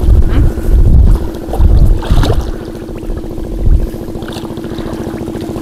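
A small engine running steadily, with irregular low rumbling gusts in the first few seconds.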